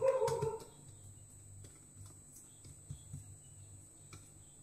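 Soft, faint clicks and squelches of fingers spreading thick besan batter over a taro leaf on a steel plate. A brief held whine fades out in the first half-second.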